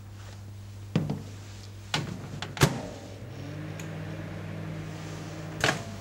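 A 1000-watt domestic microwave oven: a few knocks as the bowl goes in and the door is shut with a clunk, then the oven runs with a steady hum, ended by another clunk near the end.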